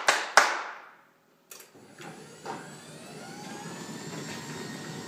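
Two sharp hand claps, then after about a second's pause a click and an automatic garage door opener starts up, its motor and the moving door running steadily and growing slightly louder.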